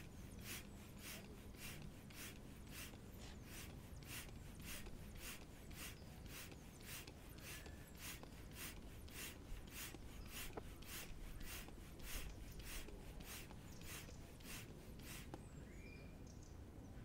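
Hand pump inflating an inflatable stand-up paddle board: a short hiss of air with every stroke, about two strokes a second, stopping near the end.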